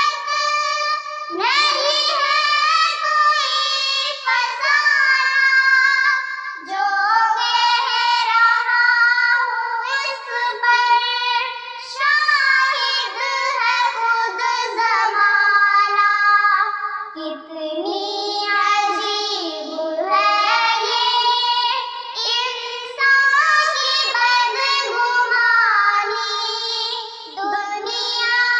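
Two young girls singing an Urdu nazm together, unaccompanied, in a melodic devotional style with long held and gliding notes.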